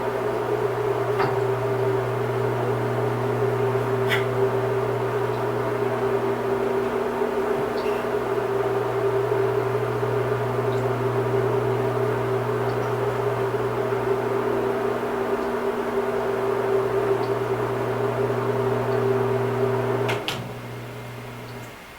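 A steady, even electrical or mechanical hum made of several held tones, with a few faint clicks; it cuts off suddenly about twenty seconds in.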